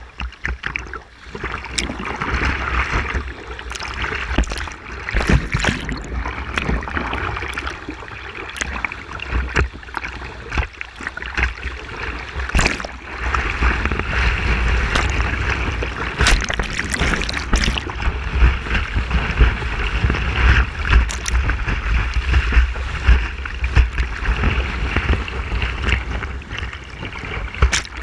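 Rushing whitewater around a kayak running rapids, with repeated paddle strokes and splashes slapping the water and the boat, over a steady low rumble on the microphone.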